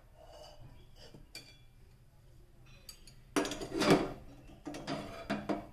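A wooden spatula scraping and knocking thick cooked dough out of a metal pot into a steel container. There are a few light clinks first, then two louder bursts of scraping and clatter near the end.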